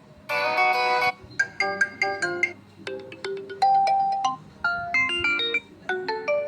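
A Redmi 12C phone ringtone playing: a short electronic melody of bright, bell-like notes. It opens with a dense held chord about a third of a second in, followed by a quick string of short notes and a few longer held ones.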